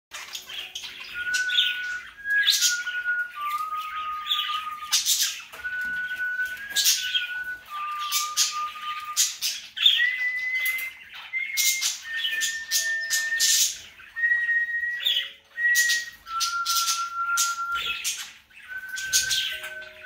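A slow tune of clear, held whistled notes stepping up and down in pitch, with cockatiels chirping and squawking sharply over it again and again.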